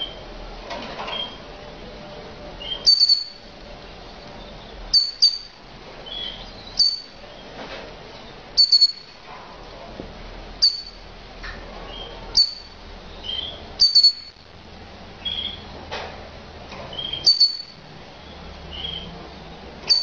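Mosaic canary giving short, high call notes about every two seconds, several of them doubled, with softer lower chirps in between.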